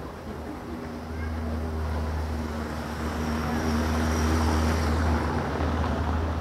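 A vehicle passing along the street. Its low rumble builds over a few seconds, is loudest around four to five seconds in, then fades.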